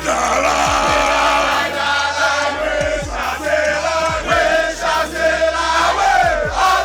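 A crowd of voices singing a chant together, held notes that bend in pitch, over a repeated low beat.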